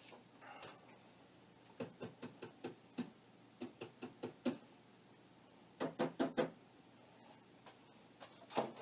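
Three quick runs of light, sharp taps, about five to a run, then a single louder tap near the end.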